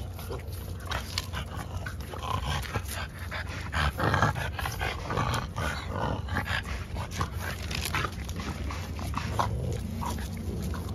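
French bulldogs, adults and puppies, making short vocal sounds as they play together, with many scattered sharp clicks and scuffles among them.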